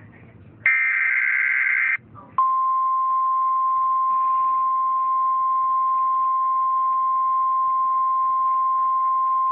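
Emergency Alert System header: the last digital data burst, a harsh warbling screech about a second and a half long, then after a short gap a single steady attention tone of about 1 kHz. The attention tone starts a little over two seconds in and holds without change.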